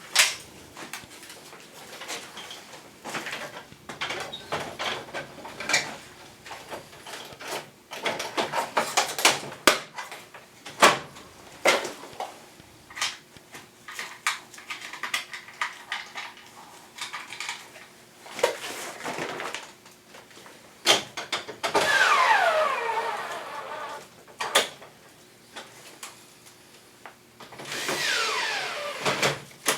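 Plastic panels and parts of a split air conditioner's indoor unit being handled and fitted, with repeated clicks, knocks and snaps. Twice there is a longer scraping squeal that falls in pitch, about two-thirds of the way in and again near the end.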